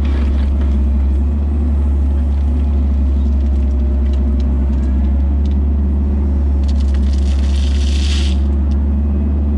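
Kubota KX161-3 mini excavator's diesel engine running steadily. A hiss of just under two seconds comes about two-thirds of the way in.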